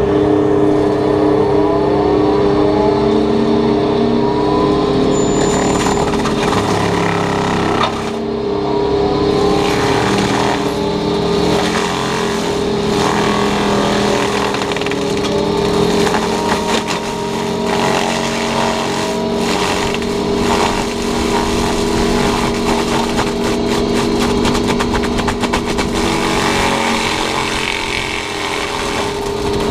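Takeuchi TB290 excavator running hard with its FAE hydraulic mulching head spinning: a steady high-pitched hum from the spinning head over the engine, with irregular crackling strikes as it chews through roadside brush.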